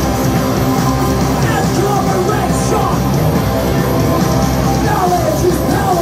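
Punk band playing loud and live: distorted electric guitars and drums, with shouted vocals.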